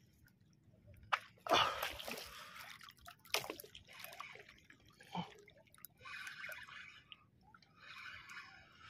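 Water splashing and dripping close by, with a few sharp splashes in the first half, then two short spells of hissing slosh near the end.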